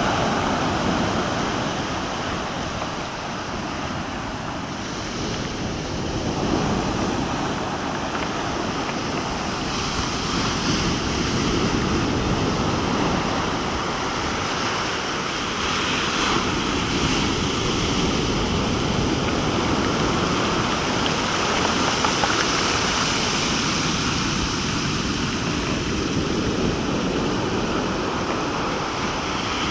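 Sea surf: waves breaking and washing foam up the shore, a continuous rush that swells and eases as each wave comes in.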